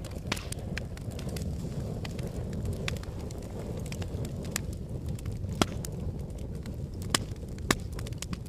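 Wood fire crackling: a steady low rumble of flames with scattered sharp pops and snaps, three louder ones in the second half.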